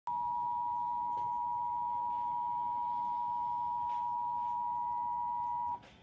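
Emergency Alert System attention signal played through a television: a steady two-note electronic alert tone that cuts off suddenly near the end, just before the flash flood warning message.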